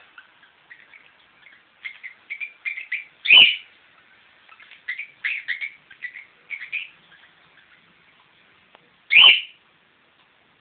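Pet cockatiel chirping and warbling in a run of short notes, with two louder calls that drop steeply in pitch, about three seconds in and near the end.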